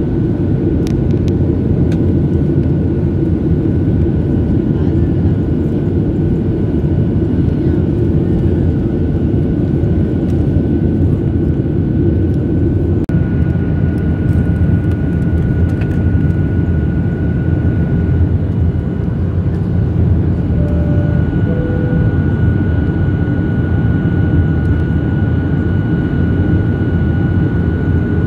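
Steady in-flight cabin noise of an airliner heard from a window seat: a low, even roar of engines and rushing air, with a thin steady high tone above it.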